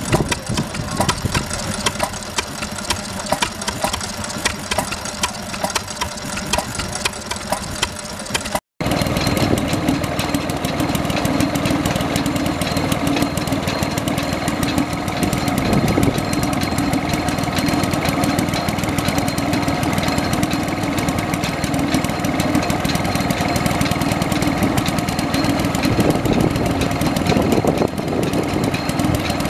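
Vintage stationary engines running. The first has a slow, evenly spaced knocking beat; after a cut, a different engine runs with a faster, denser, steady note.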